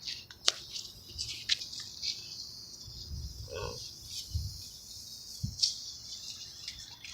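Steady high-pitched chirring of insects, with scattered sharp clicks and a few soft low thumps.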